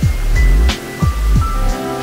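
Background music with a steady beat of deep drum hits and held chords.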